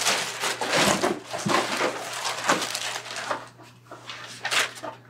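Plastic packaging wrap crinkling and rustling as it is handled in a cardboard shipping box, with a louder crinkle about four and a half seconds in.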